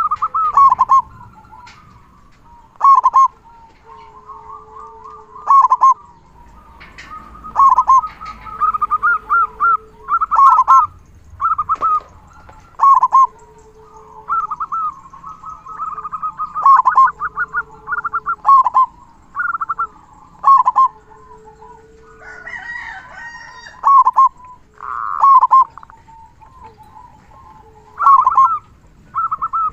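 Zebra dove (perkutut) cooing with a big 'kung' voice: loud, short coo phrases repeated every one to three seconds, with softer, lower, drawn-out notes between them.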